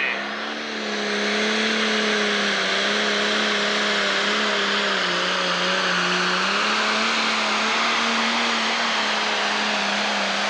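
Pro stock pulling tractor's turbocharged diesel engine running flat out under load while it drags the weight-transfer sled, a loud steady drone that wavers slightly in pitch. It swells about a second in and then holds.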